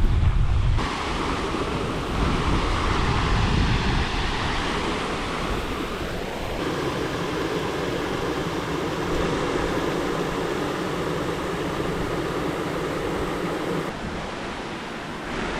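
Waterfall water rushing, a steady noise whose tone shifts abruptly a few times, with wind buffeting the microphone at the start.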